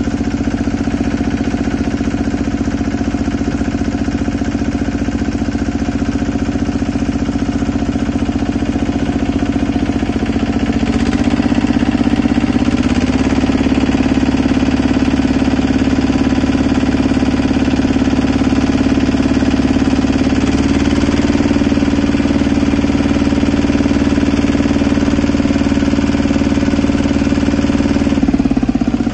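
Small engine driving the water pump that forces water down the drill pipe for jetting a well, running steadily. Its note steps up slightly twice, about eleven and twenty seconds in.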